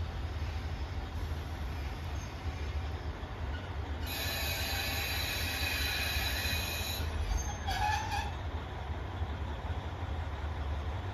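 KiHa 40 diesel railcar train creeping into the station under a low rumble, its brakes squealing in a high, ringing cluster of tones for about three seconds, then a brief lower squeal a second later as it comes to a stop.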